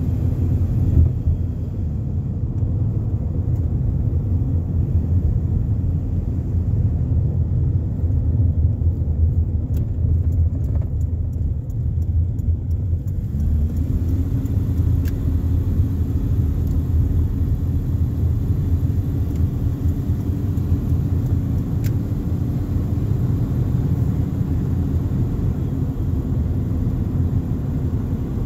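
Car driving along a road, heard from inside the cabin: a steady low rumble of engine and road noise. About halfway through, a steady engine hum comes in and rises slightly as the car picks up speed.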